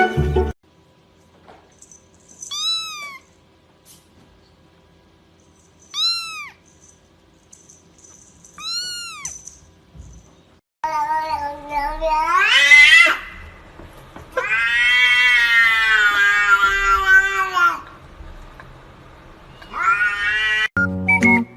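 Domestic cat meowing: three short meows a few seconds apart. Then come louder, longer rising yowls, among them one drawn-out wavering yowl of about three seconds.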